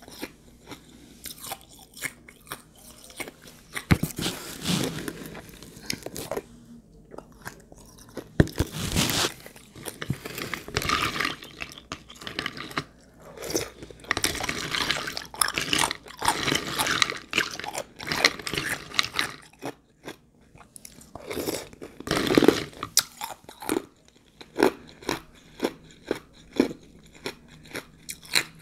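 Close-up chewing and crunching of ice chips soaked in juice: a run of sharp crunches, with longer grinding stretches in between.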